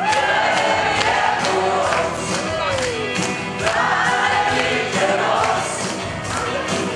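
A wedding band playing a dance song with sung vocals over a steady drum beat.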